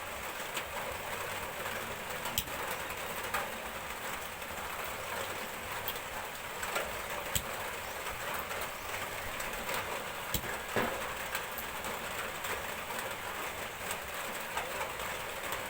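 Steady rain falling, with scattered sharp clicks.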